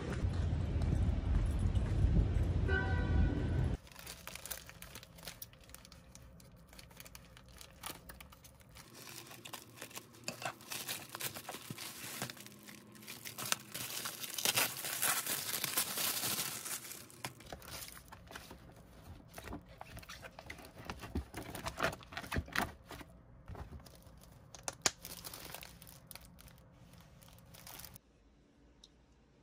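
Plastic wrapping being torn and crinkled by hand as a file organizer is unwrapped, in a long stretch of crackling rustle that is loudest around the middle. It opens with a few seconds of louder, low noise.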